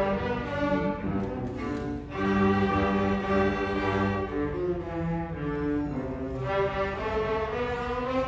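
A student string orchestra of violins, cellos and double bass playing together, bowing held notes that change every second or two.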